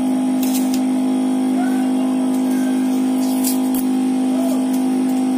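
A steady machine hum with a strong low tone and overtones that does not change, with a few brief scratchy crackles of adhesive tape being pulled from the roll.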